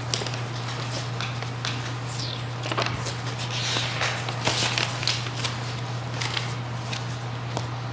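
Sheets of paper rustling and crinkling several times as they are handled and turned over, over a steady low hum.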